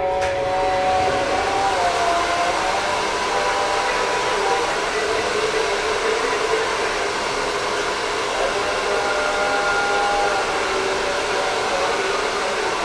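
Steady, loud rushing hiss of a small electric blower, starting abruptly with a click, with faint held tones beneath it.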